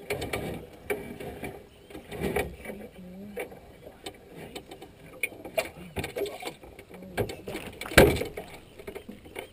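Wire crab pot clanking and rattling against a metal boat as it is handled and hauled aboard: irregular knocks, with one loud thud about eight seconds in.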